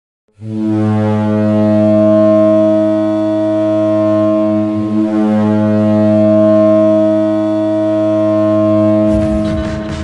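Toledo Walleye hockey goal horn sounding one long, steady blast for about eight and a half seconds. Near the end the goal song music starts up.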